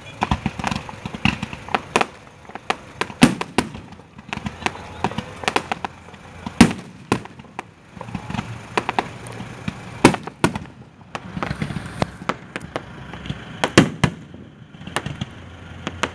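Fireworks going off: a rapid, irregular string of sharp bangs and crackles, with a few louder booms standing out every three or four seconds.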